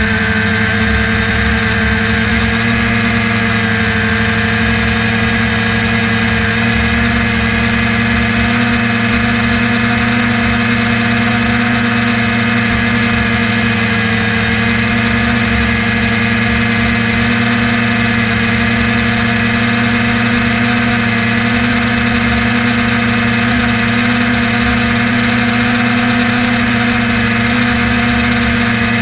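Steady engine and propeller drone of the aircraft carrying the camera, holding one even pitch, with a thin high whine above it.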